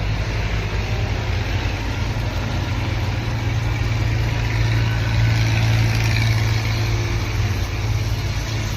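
A motor running with a steady low hum, swelling slightly about five seconds in.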